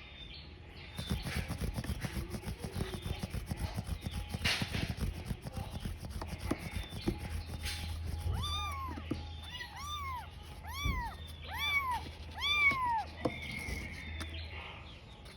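Tiny kitten crying for its mother, giving a run of about five high meows in the second half, each rising then falling in pitch, a little over a second apart. Before the meows there is a low rumbling noise.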